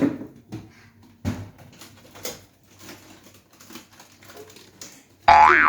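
Scattered light knocks, clicks and rustles of small objects being handled. Near the end a loud ringing tone starts with a quick upward slide and then slowly fades.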